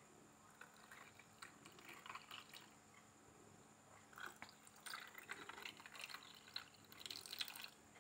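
Soda water poured faintly from a glass jug into glasses of ice, in short irregular spells that are strongest in the second half.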